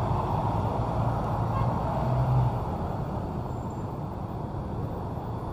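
Busy city-street traffic: cars and motorbikes running and passing close by in a steady wash of engine and tyre noise, briefly a little louder about two seconds in.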